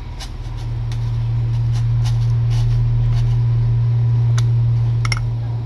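A steady low hum with a scatter of small wet clicks and smacks from kittens licking and eating canned wet food off a hand, including a quick cluster of clicks about five seconds in.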